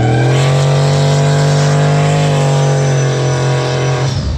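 Pickup truck's engine held at high revs during a burnout, the rear drag tyres spinning on asphalt. The engine note holds steady, then cuts off about four seconds in.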